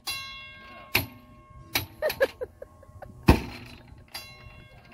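High striker strength game: a metal bell rings out at the start and fades over about a second, followed by several hammer and mallet blows on the strikers' lever pads, the loudest about three seconds in.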